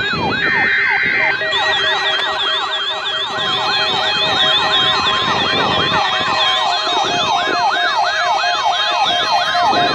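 Several NOAA weather alert radios sounding their alarms at once on a required weekly test: overlapping siren-like warbling sweeps and beeping tones. They are joined by more alarms about a second and a half in. A short buzzy data burst of the SAME alert header comes about half a second in.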